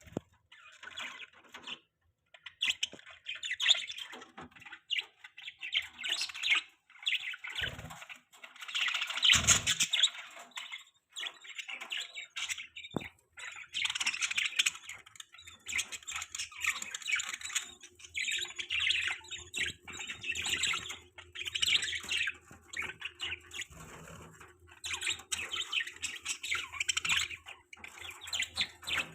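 Budgerigars chirping and warbling in busy, irregular bursts of high twittering.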